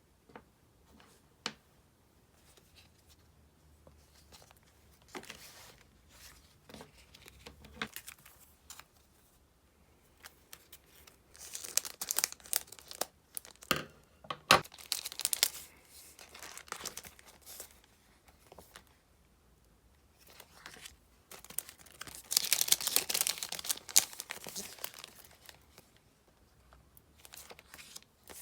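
Sticker sheets and their plastic packaging being handled, crinkling and rustling in two longer spells with a few sharp taps in between.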